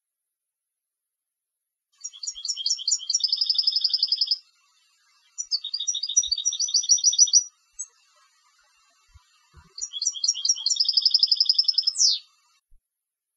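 European goldfinch singing: three phrases of rapid twittering notes running into buzzy trills, with short pauses between them, the last phrase ending in a quick downward slur.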